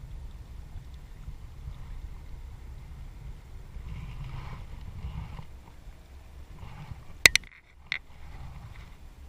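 Wind rumbling on the microphone outdoors, with three sharp clicks a little after seven seconds in.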